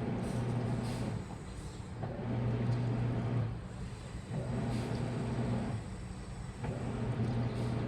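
Washing machine motor turning the drum in runs of about a second and a half, with short pauses between them, four times over: the stop-start rhythm of a wash cycle.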